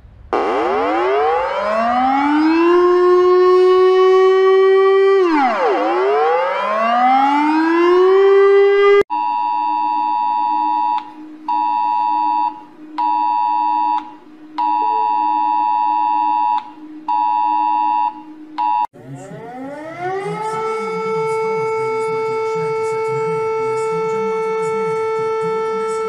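Three emergency alert sounds in a row. First, a siren wails, rising and falling twice before cutting off. Then a Romanian alert tone, a two-tone electronic beep near 1 kHz copied from the US Emergency Alert System attention signal, sounds in on-off stretches of irregular length, followed by a Lithuanian civil defense siren that winds up and holds a steady tone.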